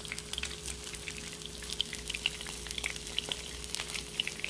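Salmon fillet frying in olive oil in a pan: a steady sizzle made of fast, irregular crackles and pops, over a faint steady hum.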